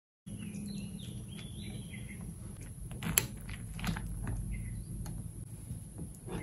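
A metal spoon moving through cereal and milk in a ceramic bowl, with sharp clinks against the bowl about three seconds in, again a little later, and at the end. Faint chirping in the first couple of seconds, over a steady low room hum.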